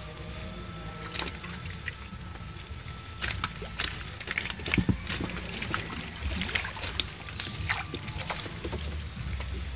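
Water splashing and sloshing with scattered clicks and knocks as a net fish trap is handled and emptied over the side of a small wooden boat, the loudest knocks about three to five seconds in.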